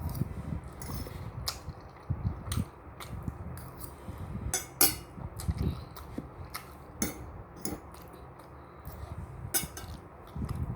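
Eating utensils clicking and clinking against a noodle bowl in irregular strokes, with the loudest clink about halfway through.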